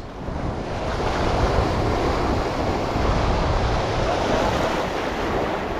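Sea surf breaking and washing across a flat rock ledge in a steady rush, with wind buffeting the microphone.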